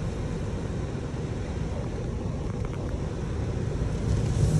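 Automatic car wash heard from inside the car's cabin: a steady low rumble of water and wash machinery on the car body, with a hissing spray building near the end.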